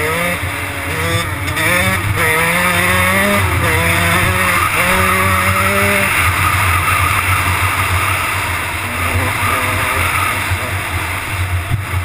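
Kawasaki motocross bike engine, heard from the rider's helmet, revving up and shifting through several gears in quick steps, its pitch climbing and dropping back at each shift. From about six seconds in, the engine is covered by a steady rush of wind on the microphone at speed.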